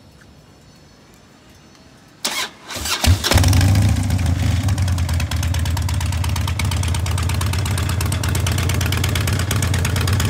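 2007 Harley-Davidson Street Bob's Twin Cam 96 V-twin cranked over about two seconds in, catching after about a second and then idling steadily.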